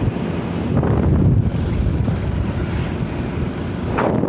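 Wind buffeting a phone's microphone: a steady low rumble, with a short brushing noise near the end.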